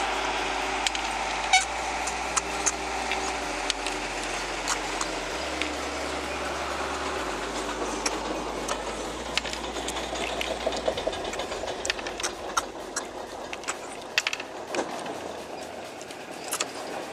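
Snails being eaten by hand and sucked out of their shells, with many scattered clicks and taps of shells and fingers on plates, thicker in the second half, over a steady low rumble.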